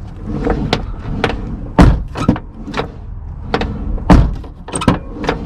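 Car door of a 1998 Honda CR-V swung open and shut twice, each close landing as a loud thunk, with lighter clicks and knocks from the door in between. The hinges and check arms are freshly greased with silicone grease, and the door opens and closes more easily.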